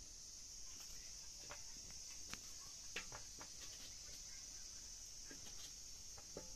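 Faint, scattered small clicks of a knife cutting potatoes held in the hand, the pieces dropping into a metal bowl, over a steady high-pitched insect chirring.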